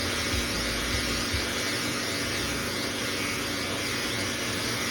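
Oneisall LM2 pet grooming vacuum running steadily: an even rush of suction air with a steady motor whine.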